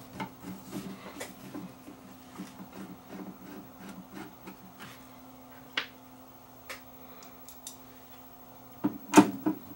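Screws being driven back into a monitor's cabinet with a screwdriver: soft repeated turning and rubbing noises, a few sharp clicks, and a louder knock near the end, over a steady low hum.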